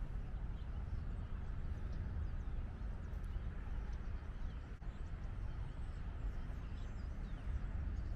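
Outdoor woodland ambience: a steady low rumble with faint, short, high bird chirps scattered through it.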